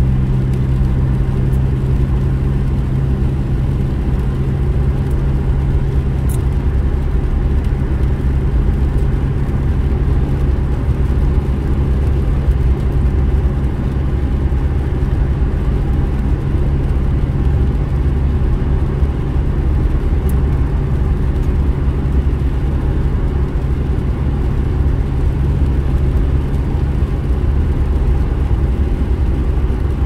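Steady low drone of a car's engine and tyres on a wet road, heard from inside the cabin while cruising at a constant speed.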